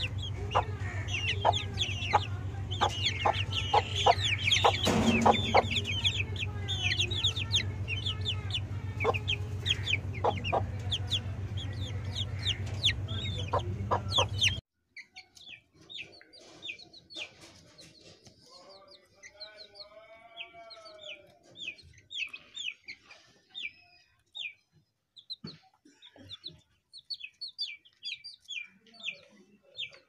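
Young Aseel chickens peeping and clucking in quick, high chirps, over a steady low hum in the first half. The sound cuts to quieter chirping about halfway through, with one longer, wavering call about two-thirds of the way in.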